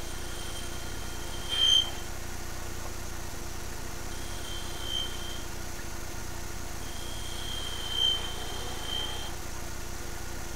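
Wood lathe running with a steady hum while a parting tool cuts a small wooden chess pawn. The cut gives a high-pitched whine three times: a short loud one about a second and a half in, one around five seconds in, and a longer one in the second half.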